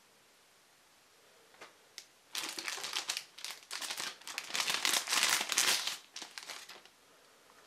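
Thin clear plastic packaging crinkling as it is handled. A couple of light ticks come first, then dense crinkling starts about two seconds in and runs until near the end, loudest in the second half.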